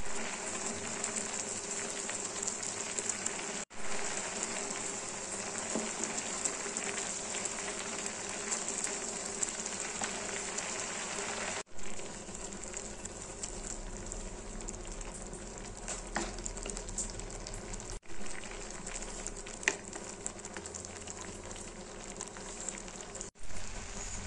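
Grated pumpkin simmering in milk and sugar in a shallow pan on low flame, bubbling and sizzling steadily as the halwa reduces, with a spatula stirring through it now and then. The sound drops out for an instant four times.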